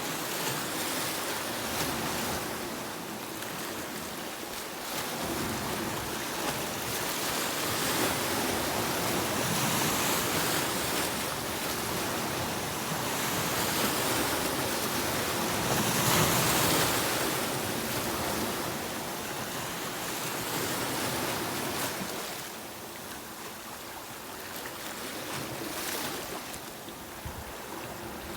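Sea waves breaking and washing on a beach, the surf swelling and easing over several seconds, loudest about halfway through.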